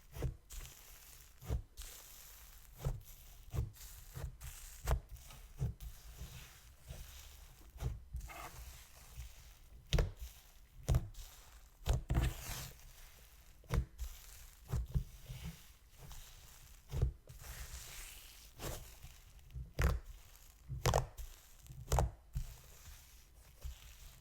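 Wet, sizzly slime being squished and stretched by hand, giving irregular sharp clicks and pops about one or two a second.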